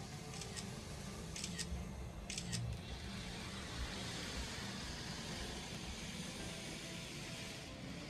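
Model railway train running on the layout's track. A few paired clicks come early, then a steady hiss of running that fades near the end.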